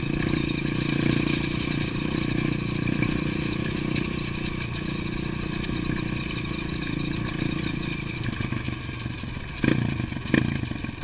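Dirt bike engine running steadily under way, heard from the rider's own bike as it rolls over railway-track ballast. A couple of sharp knocks come near the end.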